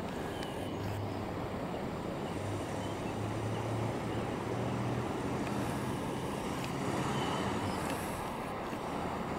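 1969 Dodge Coronet R/T's V8 engine running at low speed as the car rolls slowly closer, a steady low hum that fades out near the end.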